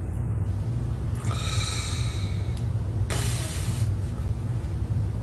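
Two soft breaths close to a phone microphone over a steady low hum: a longer exhale about a second in, then a shorter, sharper one around three seconds in.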